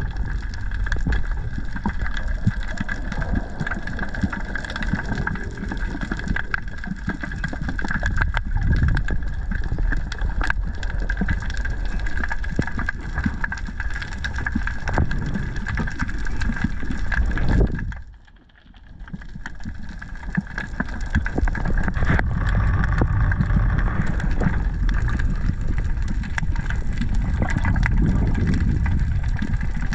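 Underwater sound picked up through a camera's waterproof housing: a steady low rumble of moving water with scattered sharp clicks and a faint steady high tone. It drops away for about a second some eighteen seconds in, then comes back.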